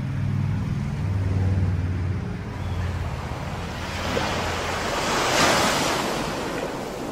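A Mercedes convertible's engine runs with a low, steady hum for the first three seconds. Then ocean surf takes over, with waves breaking and washing, loudest a little past halfway.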